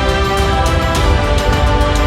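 Background music with a steady beat: held synth notes over a heavy low pulse.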